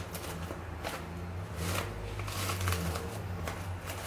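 Plastic cling film crinkling and rustling in short bursts as it is peeled off a plastic food tray.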